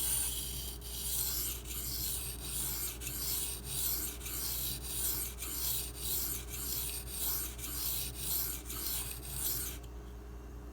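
M390 steel knife blade stroked back and forth on the 1000-grit side of a Bernal Cutlery Takarazukushi combo whetstone: a rhythmic scraping at about two strokes a second that stops shortly before the end.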